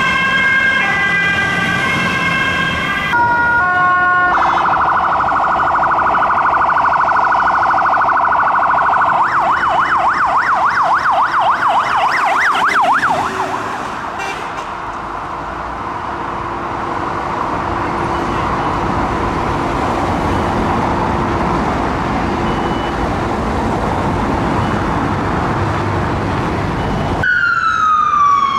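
Emergency vehicle sirens from several responding vehicles in turn. First a fire truck's siren in steady stepped tones, then a siren in a fast warble that turns into sweeping rises and falls. After that comes traffic and tyre noise, and near the end a fire truck's siren wail falling in pitch.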